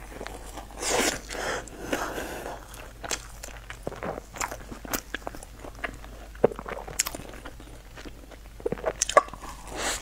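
Close-up eating sounds of baked cheese-topped bread: bites into the crust with crunching, then chewing with many small, irregular mouth clicks. There are louder bites about a second in and again near the end.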